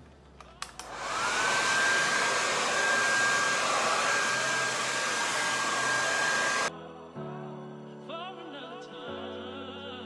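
Hair dryer with a diffuser attachment switched on on high speed after a couple of clicks: its motor whines up to a steady pitch under a loud rush of air. It cuts off suddenly about seven seconds in, and soft background music follows.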